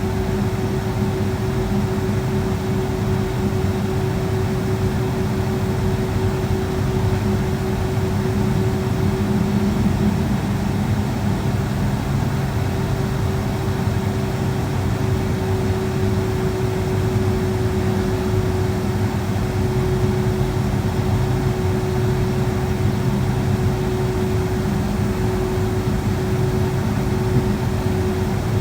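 Steady cabin noise of a Boeing 757-200 on the ground with its engines at idle: a low drone with one steady tone over the hiss of the cabin air, not changing in pitch or level.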